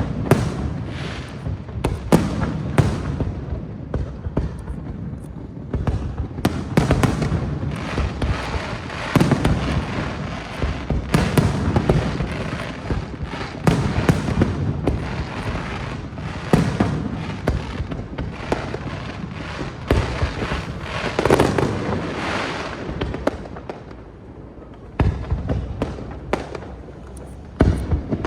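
Fireworks display: shells bursting one after another in quick succession, sharp bangs with crackle between them. There is a short lull about three-quarters of the way through, then more bangs.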